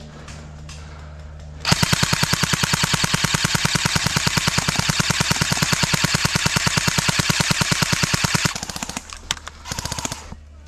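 Airsoft gun firing one long full-auto burst of rapid, evenly spaced shots for about seven seconds, starting a couple of seconds in. It is followed by a few shorter, quieter bursts near the end.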